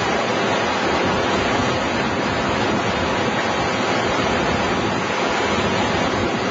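Steady, loud rush of whitewater in a class III rapid, heard from a raft running through it.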